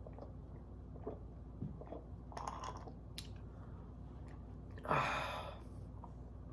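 Quiet mouth sounds of a man sipping and swallowing beer, with small clicks, then a louder breathy rush about five seconds in.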